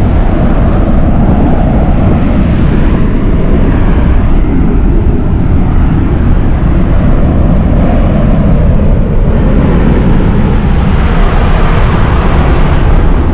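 Mount Bromo's active crater venting gas: a loud, steady rumble like a jet plane starting up.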